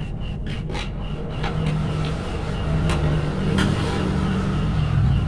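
Insulated electrical wire being handled and rubbed against the bench and a plastic junction box, with a few light clicks, over a steady low rumble.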